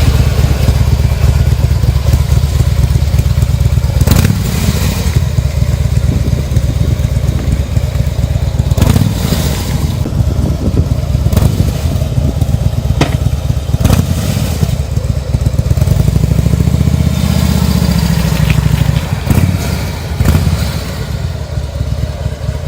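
Harley-Davidson V-twin motorcycle engine running with a low, pulsing beat. It is revved up and back down once about three-quarters of the way through, and there are a few sharp clicks along the way.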